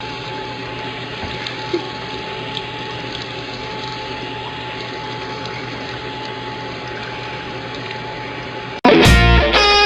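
Steady rushing noise like running water, with a faint steady tone and a few small clicks, cut off abruptly near the end by loud music.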